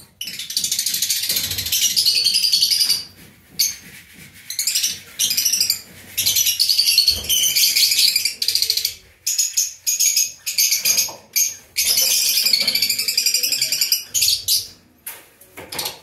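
Domestic canary singing: long, rapid high-pitched trills and warbling phrases, broken by several short pauses.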